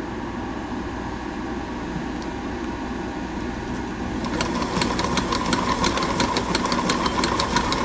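1969 Viking sewing machine's electric motor running to wind a bobbin. About four seconds in it picks up and gets louder, with a steady whine and rapid, even clicking.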